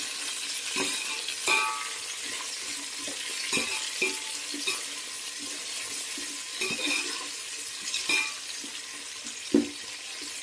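Sliced onions and green chillies sizzling in hot oil in an aluminium pot, being fried toward brown. A metal spatula stirs them, scraping and knocking against the pot every second or two, with the sharpest knock near the end.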